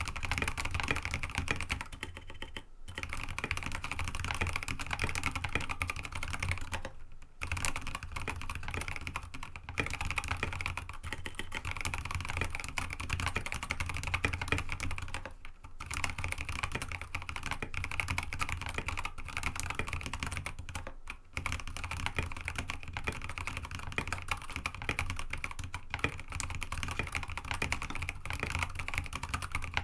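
Fast continuous typing on a mechanical keyboard with Kailh Box Ancient Gray tactile switches, an aluminium plate and MA-profile keycaps: a dense run of clacky keystrokes with a few short pauses.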